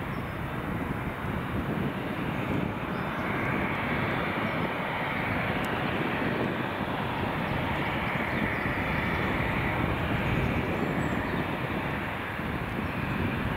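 Boeing 787 airliner's twin jet engines running at low taxi thrust as it turns and lines up on the runway: a steady jet whine over a rumble, the whine stronger through the middle stretch.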